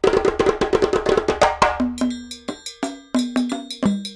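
Background music led by fast percussion, short sharp strikes with brief pitched notes, which thin out into a sparser beat about halfway through.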